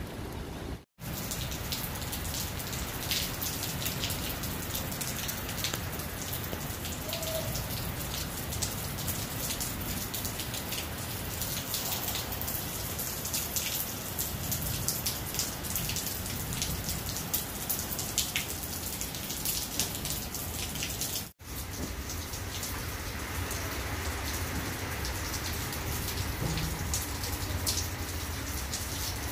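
A rain shower falling steadily on a wet concrete rooftop terrace and potted plants, a dense, even patter of drops. The sound cuts out completely for an instant twice, about a second in and again past the twenty-second mark.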